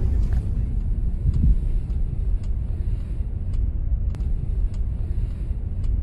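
Steady low rumble from inside a moving vehicle, with a few faint ticks.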